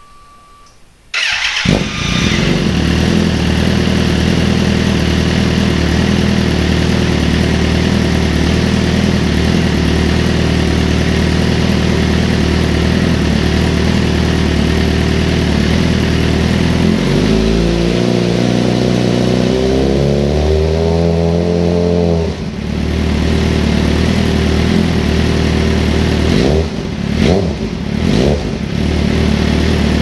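Suzuki GSX-R sportbike's inline-four engine on its stock exhaust, starting up about a second in and then idling steadily. Past the middle the revs climb slowly for about five seconds and fall back suddenly, followed by a few short throttle blips near the end.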